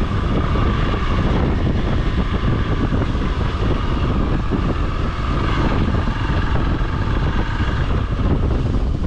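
Motorcycle engine running as the bike rides along a bumpy dirt trail, its pitch climbing slightly about halfway through as the revs rise.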